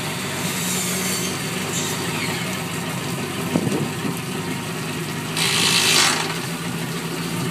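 Boat engine with a sterndrive idling steadily out of the water, running on a garden hose. Its propeller spins and churns through the hose water, which splashes onto the pavement. A louder hissing rush of spray about five and a half seconds in.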